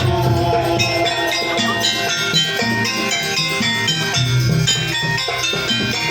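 Javanese gamelan ensemble playing jaranan accompaniment: rapid strikes on bronze metallophones and gong-chimes over drums, in a busy, steady rhythm.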